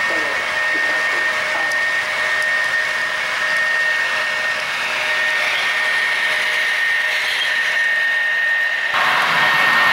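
HO scale model coal train rolling past on the track: a steady whirring rush with a thin, steady high whine over it. The sound changes abruptly near the end.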